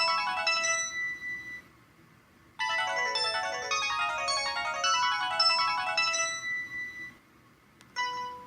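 LG Fusic mobile phone ringtone: a fast run of bright, chiming synthesized notes that plays, pauses for about a second, and plays again. A different ringtone starts near the end.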